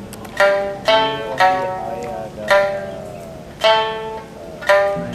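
Sanshin, the Okinawan three-stringed lute, played slowly: about six single plucked notes, each ringing out and fading before the next.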